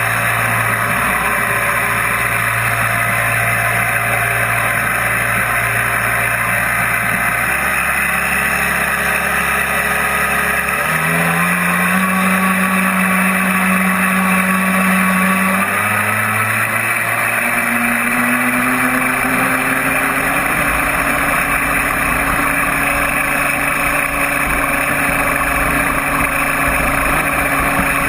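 Model jet boat's 3400KV brushless inrunner motor and 2:1 reduction gearbox driving a 3D-printed jet drive, running over a steady rushing noise. Its pitch steps up a little over a third of the way in, drops back a few seconds later, then climbs gradually.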